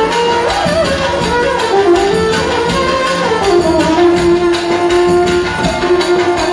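Instrumental passage of a live manele band: a violin plays an ornamented melody with sliding notes over a steady beat from a large double-headed bass drum struck with a stick.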